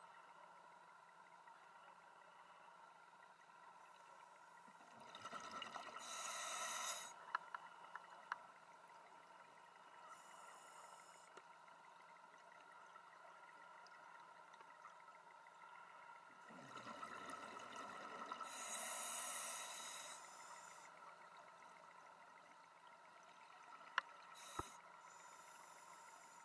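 Scuba diver breathing through a regulator underwater: short hisses of inhalation and two longer, louder rushes of exhaled bubbles, with a few sharp clicks.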